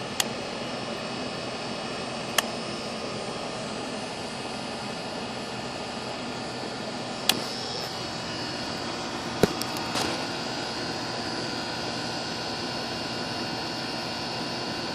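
Goodman outdoor air-conditioning condensing unit running steadily, its condenser fan blowing and compressor on, now that the failed capacitor has been replaced. A few sharp clicks stand out over it: one near the start, one about two seconds in, and three more between about seven and ten seconds.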